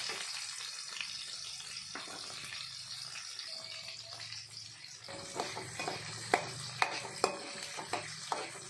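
Sliced shallots sizzling in hot oil in a metal kadai. About five seconds in, a metal ladle starts stirring them, clinking and scraping sharply against the pan a few times a second.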